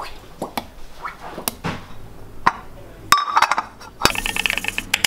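A few light knocks and clicks, then about a second of rapid rattling near the end as a ceramic-coated frying pan is slid about on the stove's burner plate.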